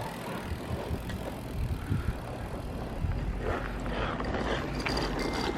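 Bicycle rolling on pavement, the tyres making a steady noise over a low outdoor rumble.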